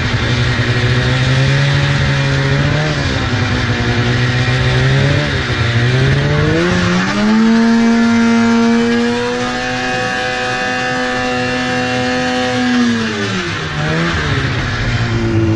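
2004 Polaris RMK 800 snowmobile's two-stroke twin-cylinder engine running under way. It wavers at lower revs, revs up about six seconds in and holds there for several seconds, then drops back near the end.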